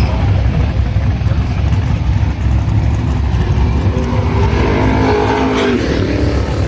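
Loud, deep rumble of performance car engines. One engine revs up about four seconds in and falls away again shortly before the end.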